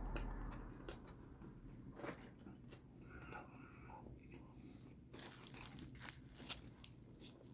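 A person chewing and biting into a chicken torta sandwich close to the microphone: faint crunching with scattered mouth clicks.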